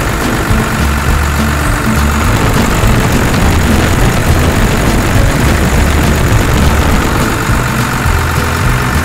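Hürlimann farm tractor's diesel engine idling steadily, heard close up from beside the engine bay.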